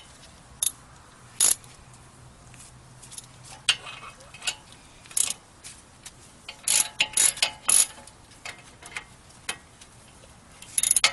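Socket ratchet clicking in short, irregular runs as it tightens the 17 mm brake caliper bracket bolts.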